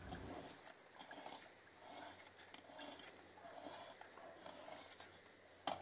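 Near silence: faint handling sounds around an open motorcycle crankcase, with a light click near the end.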